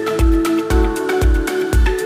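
Electronic background music with a steady kick-drum beat about twice a second under held notes.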